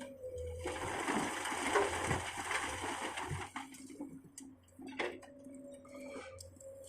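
Komatsu PC200 excavator working, a steady engine hum under a loud rushing, hissing noise that lasts about three seconds, then a sharp click about five seconds in.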